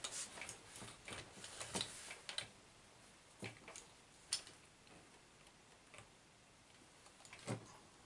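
Quiet, scattered clicks and taps of metal parts and tools being handled while a shock absorber is fitted to the front suspension of a large Raminator RC monster truck. They come in a cluster over the first couple of seconds, then as a few single clicks.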